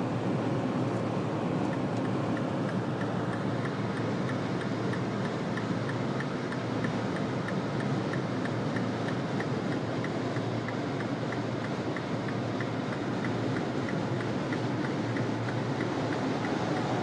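Mini Cooper cabin noise while driving: a steady rumble of engine and tyres. From about two seconds in there is a regular light ticking, about three ticks a second.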